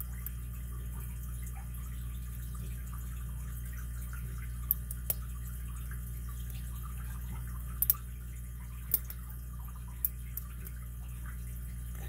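A lock pick and tension wrench working the pins of a solid-brass, five-pin Hercules 800 padlock: a handful of small sharp clicks between about four and ten seconds in, over a steady low hum.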